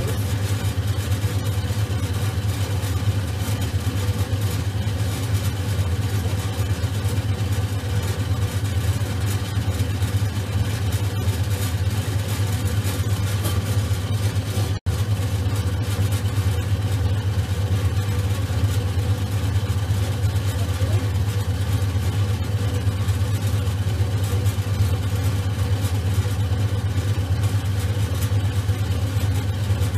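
Electric potter's wheel running with a steady low hum as the wheel head spins; the sound cuts out for an instant about halfway through.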